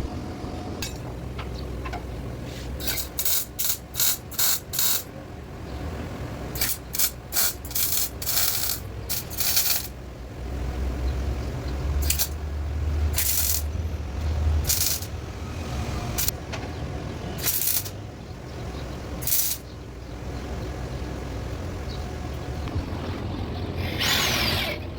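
CO2 (MIG) welder laying a run of short tack and stitch welds, each a brief crackling hiss, in quick groups over a low steady hum. A falling whine comes near the end.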